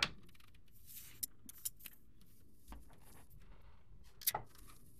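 Faint handling noise: soft rustling with a few scattered clicks and light knocks, the most distinct a quick double knock about four seconds in.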